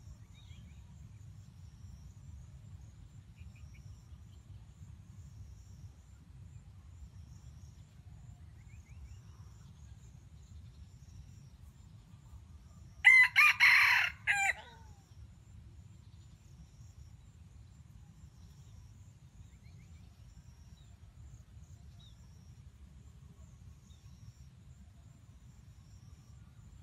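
A red junglefowl rooster crows once, about halfway through: a single loud, short crow lasting about a second and a half. A steady low rumble and faint high chirps run underneath.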